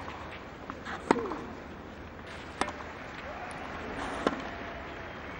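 Tennis ball struck by rackets in a clay-court baseline rally: four sharp hits, spaced about one to one and a half seconds apart, over the stadium's low background hum.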